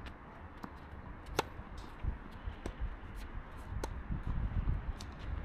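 Tennis rally in play: a string of sharp pops from rackets striking the ball and the ball bouncing, several clearly separated strikes, the loudest about a second and a half in, over a low rumble.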